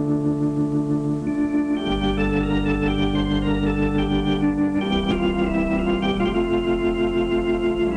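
Film score music: slow, sustained organ chords with a steady wavering tremolo, moving to a new chord every two or three seconds over a held bass note.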